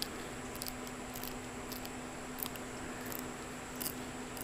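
Tire-plug reamer rasping in and out of a puncture hole in a tire tread, faint short scratches recurring about every half second to second, over a steady low hum.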